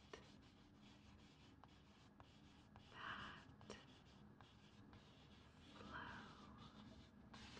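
Faint tracing strokes on a paper calendar: two soft swells of rubbing, about three and six seconds in, with a few light ticks between.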